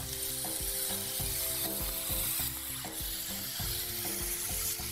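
Chicken mince frying in a non-stick pan with onion and dried coconut, a steady sizzle, stirred with a wooden spatula that knocks against the pan now and then.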